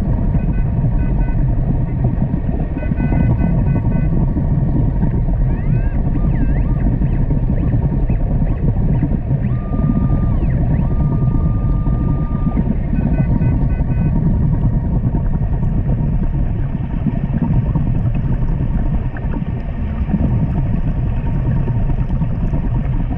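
Underwater metal detector, a Minelab Equinox, sounding over a steady low underwater rumble. Its short beeping bursts come three times, and a single held tone lasts about three seconds in the middle.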